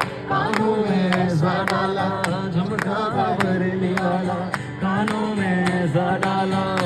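A voice singing a melodic song over musical accompaniment with a steady percussive beat.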